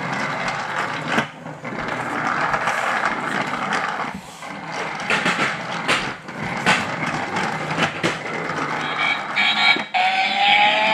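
Battery-powered toy car's electronic sound effects: a rough, noisy engine-like sound broken by clicks, then near the end a beeping electronic tune starts.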